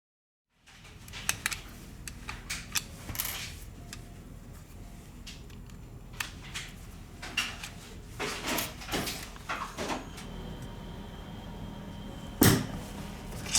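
Irregular clicks and knocks of a phone and tools being handled on a workbench, with one louder knock near the end.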